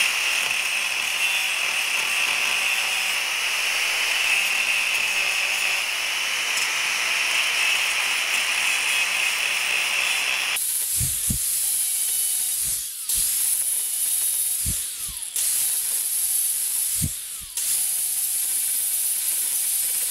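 Angle grinder with a cutoff wheel cutting into a steel railroad spike, a steady high-pitched whine of the wheel on the metal. About ten seconds in the sound turns harsher, and it breaks off briefly three times with a few low knocks.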